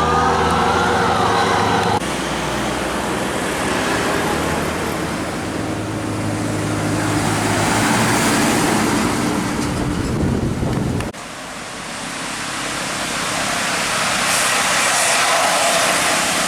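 Tour bus engine and road noise as buses pass. In the first two seconds a bus's basuri musical horn plays a gliding, siren-like tune, which stops abruptly. The sound drops off suddenly about eleven seconds in, then more traffic noise builds up.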